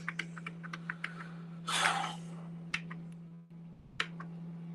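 Faint scattered clicks of a computer keyboard and mouse over a steady low hum, with a short hissy burst about two seconds in. The hum drops out briefly past the three-second mark, and a sharper click follows.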